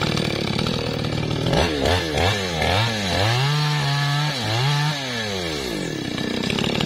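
Maestro mini gasoline chainsaw cutting into a teak trunk at full throttle. The engine note dips and recovers several times as the chain bogs in the wood, then climbs back and falls away sharply near the end.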